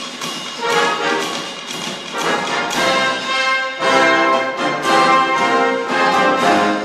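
A Salvation Army brass band playing live: full brass chords held and moving from one to the next, growing louder after about three seconds.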